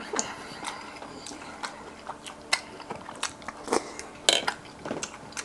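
A person chewing a mouthful of food close to the microphone, with irregular mouth clicks and smacks about three to four times a second.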